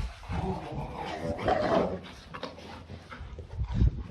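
Rottweiler puppies scuffling about and giving small whines, with a louder short cry about a second and a half in and a thump near the end.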